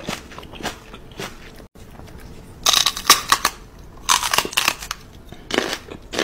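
Crunching bite sounds, like teeth biting into something crisp, in quick clusters. The loudest bunches fall a little before the middle, just after it, and near the end.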